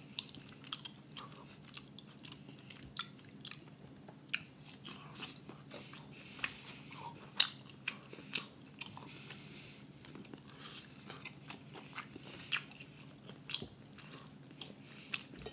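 A person chewing and biting into rotisserie chicken close to the microphone: many short, irregular mouth clicks and smacks.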